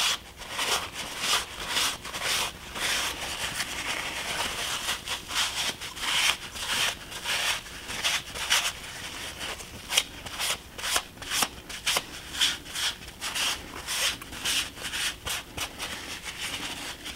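Paper towel rubbed quickly back and forth over a model brick wall panel, wiping grey joint-compound mortar off the face of the bricks: a steady run of short dry scuffing strokes, a few a second.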